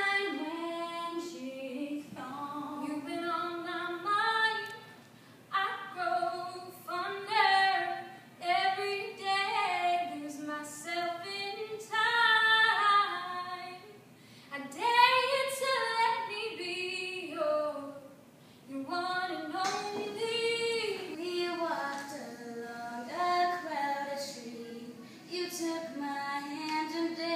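Women singing solo and unaccompanied (a cappella). Several different singers are heard in turn in short excerpts, one after another.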